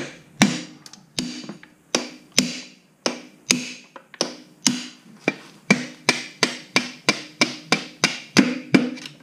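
Hammer blows on a drift at a Yamaha YZ85's swingarm pivot, driving out the snapped swingarm bolt as it starts to move. About twenty sharp metallic strikes, each with a short ring, coming faster after the halfway point.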